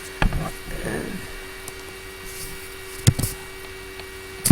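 Laptop cooling fan running with a steady hum, heard through the laptop's own microphone, with a few sharp clicks and knocks from working the laptop, the loudest near the end.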